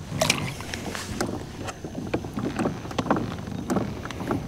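Water lapping and slapping irregularly against a plastic kayak hull, in short splashes several times a second.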